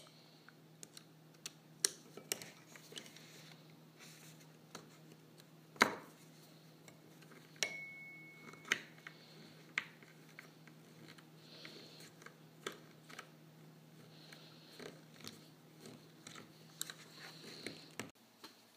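Scattered small metallic clicks and clinks of a screwdriver working screws through a thin metal mounting plate into a wooden base, with one louder knock about six seconds in and a brief high squeak about eight seconds in.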